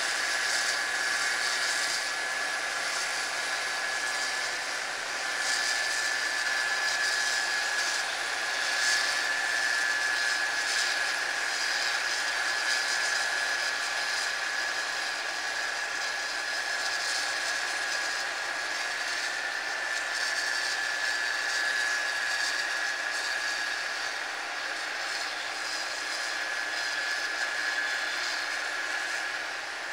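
Harvest machinery running steadily: a constant high whine over an even rush of mechanical noise.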